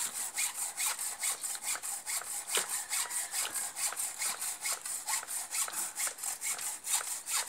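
A steady high-pitched rasping that pulses evenly, about five times a second.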